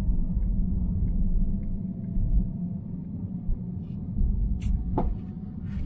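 Steady low rumble of a car's engine and road noise heard inside the cabin while driving, with a couple of short sharp clicks near the end.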